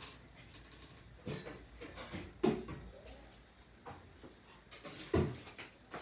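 Scattered light knocks and clicks, a few seconds apart, with faint voice-like sounds in between.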